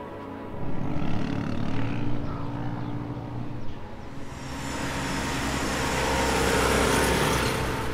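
Quad bike engine running hard as it speeds along a dirt track, its note rising and pulsing. From about halfway a rising rush of noise swells and peaks near the end.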